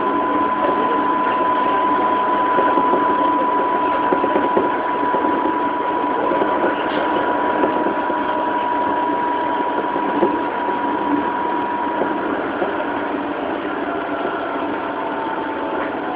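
JR 205 series electric multiple unit heard from inside a motor car while running at speed: continuous wheel-and-rail rumble with a steady whine that fades out about three-quarters of the way through.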